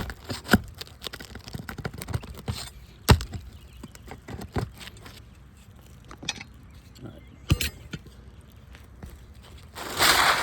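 Scattered knocks and metallic clicks of roofing tools working nails and asphalt shingles loose, with a few sharper strikes. Near the end comes a loud, rough scraping rustle as the shingle is worked free.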